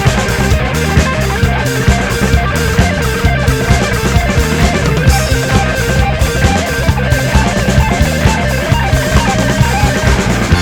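Rock music with electric guitar and drum kit, a steady beat.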